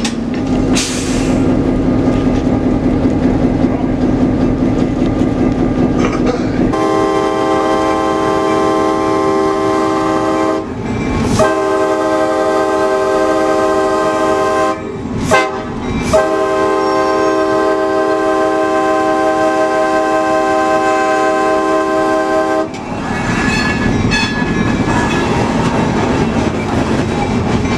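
Locomotive air horn sounding a multi-note chord in long blasts with two short breaks, a warning for a road grade crossing ahead. It comes in about seven seconds in over the EMD SW8 switcher's diesel engine and the wheels on the rails, and stops a few seconds before the end.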